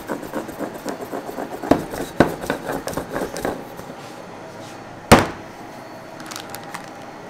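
Hard objects being knocked and handled: a run of quick light taps for the first few seconds, two louder knocks, then one sharp, loud clack about five seconds in.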